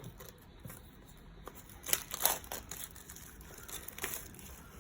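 Packaging of a speedcube box being handled and opened: rustling, crinkling and scraping, with a cluster of louder scrapes about two seconds in and another near the end.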